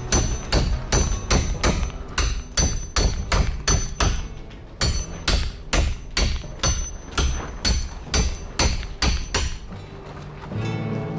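Claw hammer striking the heads of steel bolts, driving them down through holes in a plywood gusset and frame timber, in quick runs of about three blows a second. There is a short break about four seconds in, and the blows stop shortly before the end.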